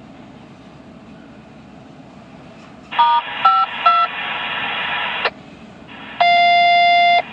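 Railroad radio on a scanner: three quick touch-tone (DTMF) beeps, the kind a train crew keys to call the dispatcher, then about two seconds of radio hiss and a steady, buzzy one-second tone. Underneath is the low, steady rumble of a passing double-stack intermodal train.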